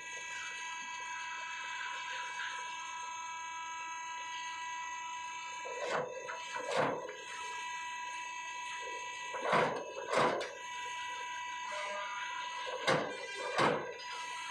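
Cars driving off a ferry over the steel ramp plates, each giving a double clank as its front and then rear wheels cross: three cars, a few seconds apart. A steady buzzer-like tone sounds beneath the clanks.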